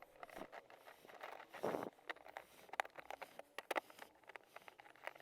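Scattered small clicks and taps of plastic car-seat trim parts being handled and fitted by hand, with a brief rustling scrape about a second and a half in.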